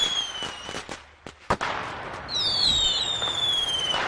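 Fireworks going off: whistling shells with long falling whistles, a sharp bang about a second and a half in, then crackling and another falling whistle from about two seconds in.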